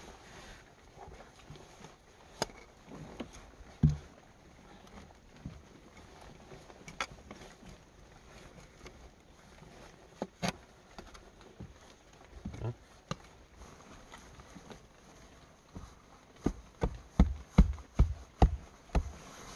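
Small spade scraping and chopping into soil, with scattered knocks at first, then a quick run of thudding strikes about three a second near the end.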